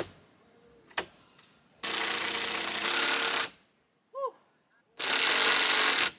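Cordless drill running in two bursts, about a second and a half and then about a second long, as it bores and drives screws into a log roof beam overhead. There is a sharp click about a second in.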